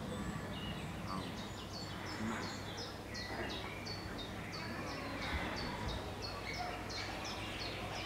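Asian short-clawed otters chirping: a rapid run of short, high, falling squeaks, about two or three a second, starting about a second in.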